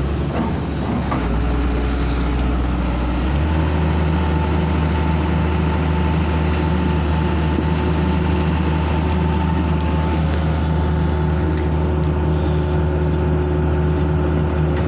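Hitachi excavator's diesel engine running steadily, heard from inside the cab as the boom and bucket work. About three seconds in, the engine note rises slightly and holds as it takes hydraulic load.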